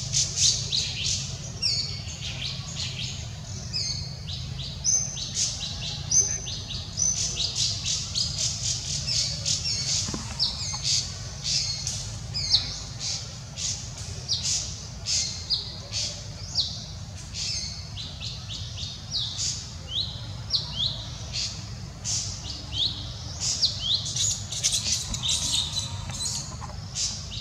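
Many short, high-pitched chirping calls, several a second, many of them quick falling squeaks, over a steady low rumble.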